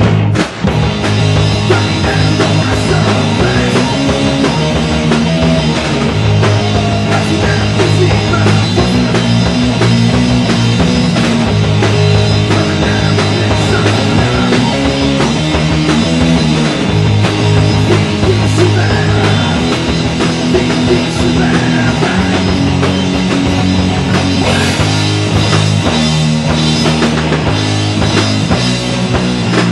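Live rock band playing loud, heavy stoner-punk style: electric guitar, electric bass and drum kit. The sound drops out for an instant just after the start, then carries on.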